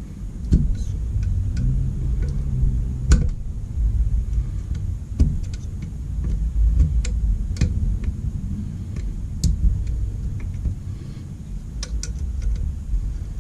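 Scattered light clicks and knocks of metal motorcycle fork parts being handled and fitted, over a steady low rumble. The sharpest knock comes about three seconds in, with a few quick clicks near the end.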